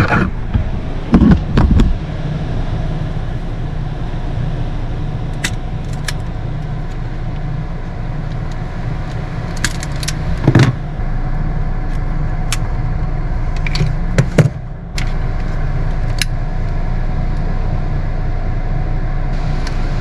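Scattered clicks and light metallic clinks of wire connectors and tools being handled while wires are spliced at the battery, over a steady low hum.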